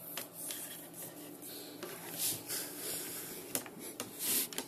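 A bundle of red and black insulated hookup wires being pulled and fed under a wooden baseboard: irregular rustling with scattered light clicks and knocks.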